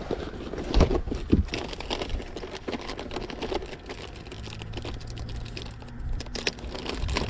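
Rummaging through fishing tackle: a quick run of small, irregular plastic clicks and crinkles.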